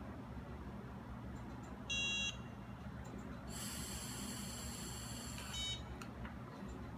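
Lifeloc FC10 handheld breathalyzer: a short electronic beep about two seconds in, then about two seconds of steady blowing into its mouthpiece under a high steady tone, ending in a second short beep as the breath sample is taken.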